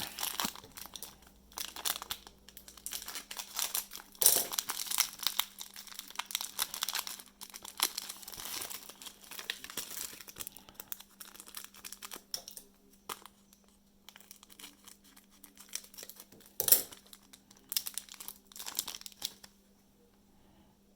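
Plastic trading-card pack wrappers crinkling and tearing as packs are handled and opened: an irregular run of crackles with a few sharper, louder pops, dying away near the end.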